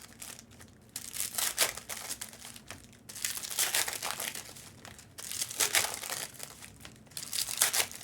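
Plastic card-pack wrappers and packaging crinkling in several short, irregular bursts as trading card packs are opened and handled.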